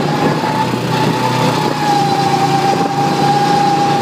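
Go-kart engine running steadily while the kart drives around the track, with a steady high whine held over the engine noise.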